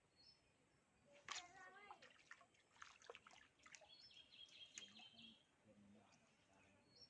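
Faint bird calls: short high chirps, a held whistled note about four seconds in, and scattered soft clicks.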